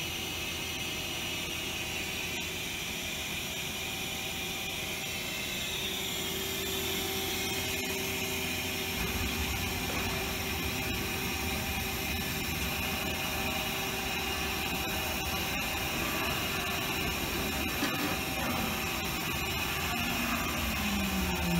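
Mazak Quick Turn Nexus 350 CNC lathe powered up and running: a steady whir and hum from the machine, joined about nine seconds in by a deeper hum. Near the end a whine falls in pitch as the tool turret traverses.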